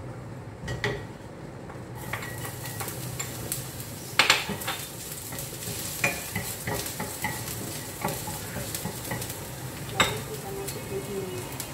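Minced garlic sizzling in hot oil in a frying pan, the hiss starting about two seconds in as the garlic goes in. A wooden spatula stirs it, with a few sharp knocks against the pan, the loudest a little after four seconds and near the end.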